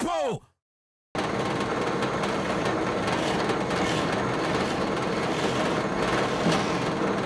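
After a tail of rock music and a moment of silence near the start, a drill press runs steadily, its twist bit drilling into a wooden drum shell.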